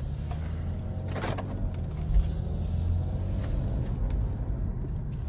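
Stage 2 tuned BMW 330d's three-litre straight-six diesel running steadily, held ready for a launch-control start, with a single sharp click about a second in.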